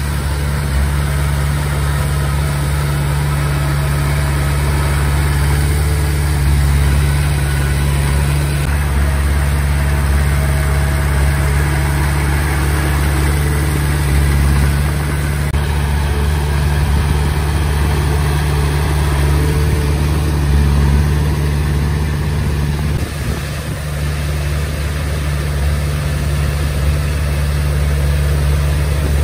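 Komatsu D20P bulldozer's diesel engine running steadily, a deep even drone that swells and eases slightly, with a brief drop in level about three-quarters of the way through.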